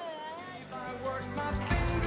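Background music: a wavering, sliding held note, then a rock song comes in louder with heavy bass near the end.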